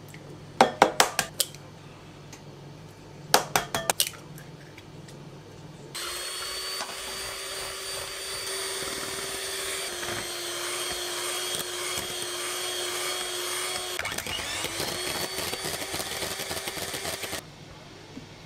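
A few sharp knocks, then an electric hand mixer whipping egg whites in a glass bowl at high speed. It runs as a steady motor whine for about eleven seconds, shifting slightly in pitch a couple of times, then switches off abruptly near the end.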